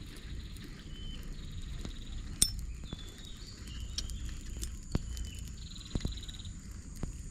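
A few sharp clicks and taps from a spinning reel and rod being handled, over a low rumble of wind. Short chirring calls and a steady high whine of insects sound in the background.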